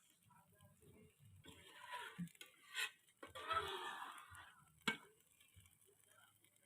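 Utensil stirring and scraping through rendang in a pan: two scraping passes of about a second each, with sharp knocks of the utensil against the pan between and after them.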